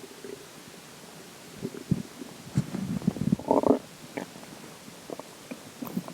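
Human stomach gurgling after drinking water: a run of short gurgles and rumbles that starts about a second and a half in and is strongest just past the middle, followed by a few faint clicks.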